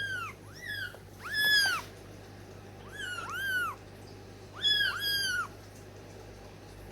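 Kittens mewing: about seven short, high-pitched mews, several coming in quick pairs, with short pauses between them.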